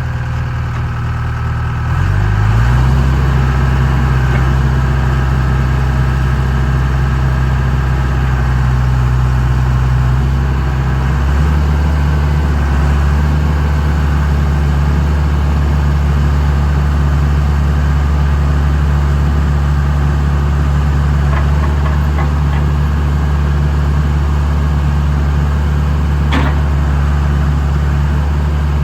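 John Deere 310E backhoe's diesel engine running steadily. About two seconds in it speeds up and gets louder, and around eleven seconds its pitch shifts again. There is a single sharp click near the end.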